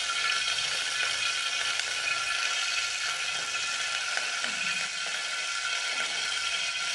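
Cooking oil heating in an aluminium pot on a gas burner, sizzling steadily, a sign of a little water in the oil.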